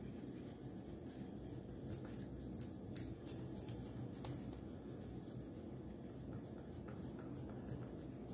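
Hands pressing and spreading oiled pizza dough out in a steel plate: faint soft pats and scattered light clicks, over a low steady background hum.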